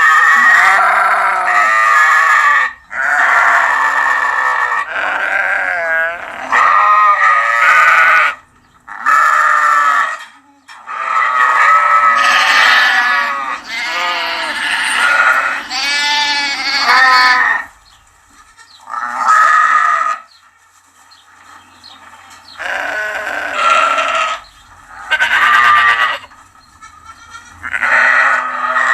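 Sheep bleating in high, lamb-like calls: about a dozen wavering baas of one to three seconds each, one after another with short pauses, some running into each other.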